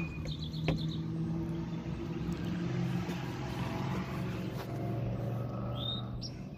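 A steady low engine-like hum whose pitch shifts slightly a few times, with a quick run of high chirps about half a second in.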